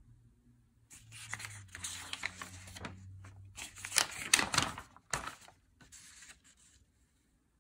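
Paper rustling and crinkling as a folded sheet of printed assembly instructions is handled and turned, in a run of crackling bursts that is loudest about four seconds in.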